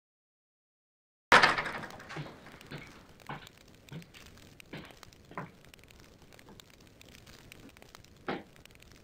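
A loud knock about a second in, then footsteps on a wooden floor at a walking pace over quiet room tone, and a single thud near the end.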